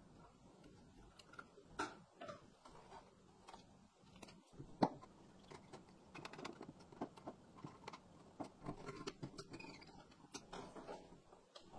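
Faint scattered clicks and taps of a screwdriver and wire ends working the screw terminals of a metal-cased power supply, with one sharper click about five seconds in.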